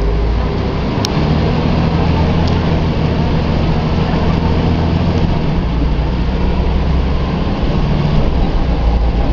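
Volvo B10M bus's inline-six diesel engine running steadily, with its note shifting about five and a half seconds in.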